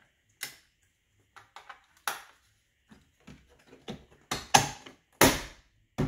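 Small plastic clicks as wiring connectors are plugged into a Ford F-150's power-window switch bezel. Then come three loud sharp snaps and knocks in the last two seconds as the bezel is pressed into the plastic door trim panel.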